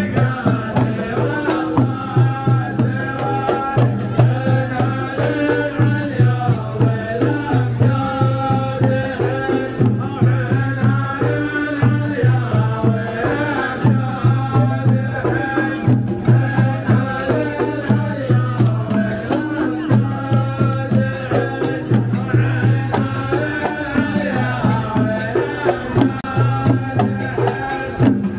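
Qatari Ardha folk performance: a chorus of men chanting in unison over a steady, regular beat of large frame drums and barrel drums.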